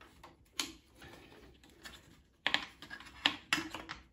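Aluminium folding camping table being assembled, its leg frame clipping into the tabletop's bars: a single click about half a second in, then several sharper clicks and knocks of metal and plastic in the last second and a half as the legs seat.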